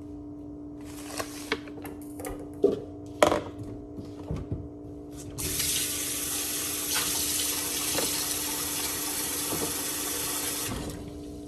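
A few clattering knocks, then a kitchen faucet running in a steady stream for about five seconds before it is turned off.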